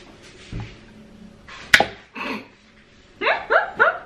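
A sharp knock about two seconds in, then a woman laughing in short rising bursts, about four a second, near the end.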